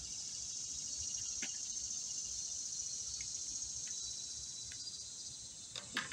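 Steady high-pitched insect chorus, with a couple of faint short clicks.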